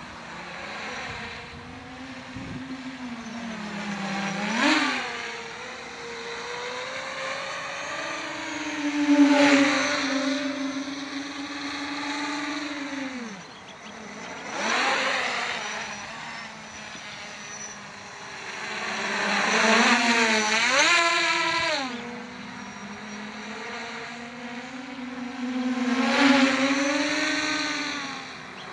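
Electric motors and propellers of an acrobatic multicopter whining in the air, the pitch rising and falling with the throttle. Five louder surges of rising whine come every five seconds or so as the craft powers up.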